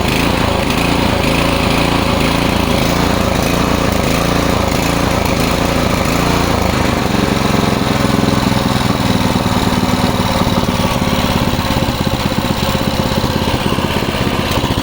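Westinghouse WPX3200 pressure washer's single-cylinder gas engine running steadily under its newly fitted manual throttle control. Its note shifts about seven seconds in.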